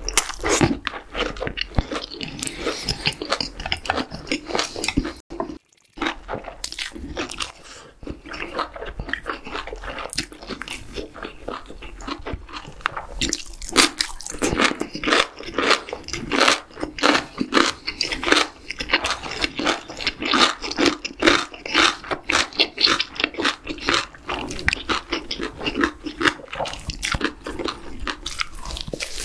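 Close-miked chewing and biting, with many sharp crunches: a mouthful of egg-wrapped gimbap and crisp radish kimchi. There is a brief silent gap about six seconds in.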